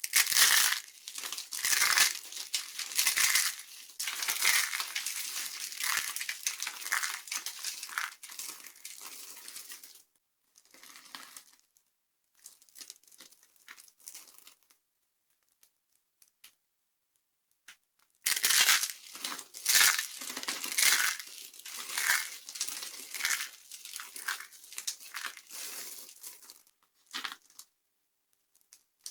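Dry soap being crushed and crumbled, a dense crackling and crunching in two long spells with a pause of scattered small cracks between them.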